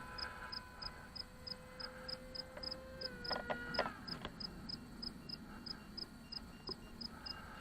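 Faint steady whine of an RC plane's motor that steps down in pitch about three seconds in and cuts off about a second later with a few clicks, as the plane is throttled back to come in. High insect chirps repeat about four times a second throughout.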